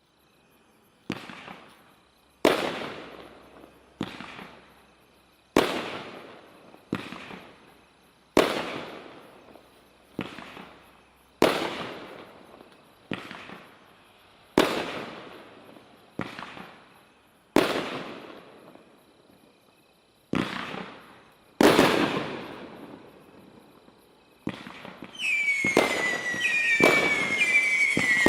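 'Total Gossip' consumer firework display: a string of single aerial shots, about one sharp bang every second and a half, each trailing off. Near the end it turns into dense crackling with several falling whistles.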